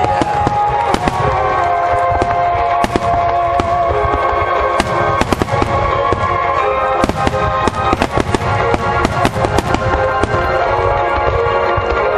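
Aerial fireworks going off in a rapid, irregular run of bangs and crackles, thickest from about seven to nine seconds in, over music with long held notes.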